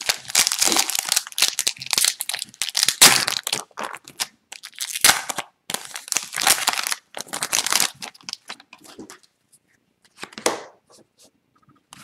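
Upper Deck Extended Series hockey card pack wrapper being torn open and crinkled in the hands as the cards are pulled out. Dense crinkling for the first three seconds and again from about five to eight seconds, then only scattered quieter rustles.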